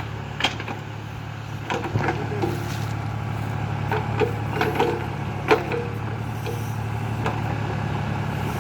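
John Deere tractor's diesel engine running steadily while working a mounted backhoe. Sharp metallic clanks and knocks come through it, several in the middle stretch.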